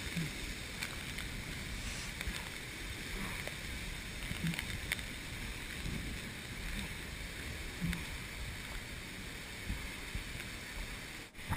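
Muddy flash-flood water rushing steadily through a slot canyon, a constant churning wash of water. The sound drops out for a moment near the end.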